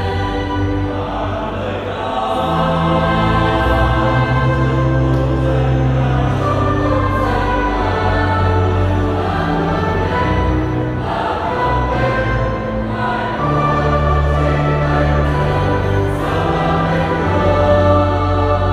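Church choir singing a Vietnamese Catholic hymn, voices stacked in long held notes over sustained low notes.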